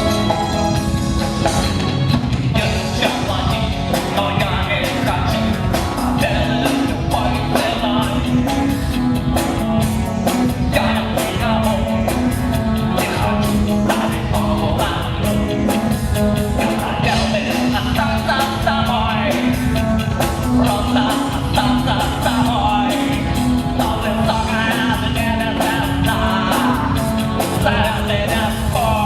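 A rock band playing live: singing over drum kit and guitar with a steady beat.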